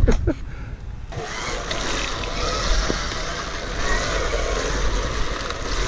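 GasGas electric trial bike riding along a gravel track, with a steady rush of tyre and wind noise that swells about a second in as it picks up speed. No combustion engine is running.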